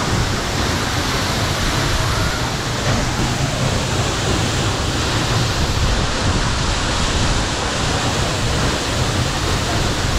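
Tiger Falls, a tall waterfall plunging straight into its rock pool, giving a loud, steady rush of falling water and spray.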